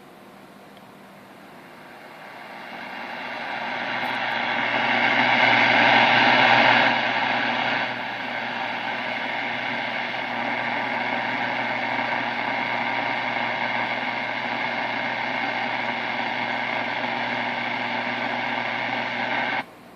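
Vintage 1946 AM tube radio's speaker giving out static hiss over a steady mains hum, swelling up over several seconds, then holding steady until it cuts off abruptly near the end.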